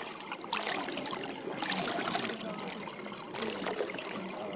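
Water running down a stepped stone cascade fountain, a steady trickling and splashing over the steps that swells and eases a little every second or so.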